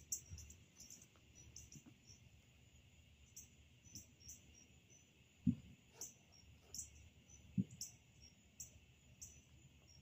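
Insects chirping: short high chirps repeating roughly every half second over a steady high hum. Two short low thumps stand out about five and a half and seven and a half seconds in.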